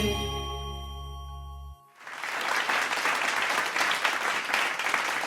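The final held note of a sung Hindi devotional bhajan fades out. About two seconds in, a round of applause with many hands clapping begins and carries on steadily.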